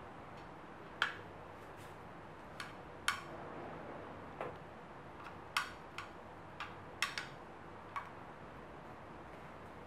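Metal offset spatula clicking against the sides and rim of a glass baking dish while spreading whipped cream, about ten sharp, irregularly spaced taps.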